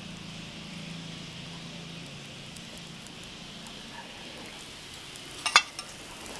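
Dosa batter sizzling gently on a hot nonstick tawa, a steady soft hiss. About five and a half seconds in a steel spoon clinks sharply against the pan as oil is spooned over the dosa.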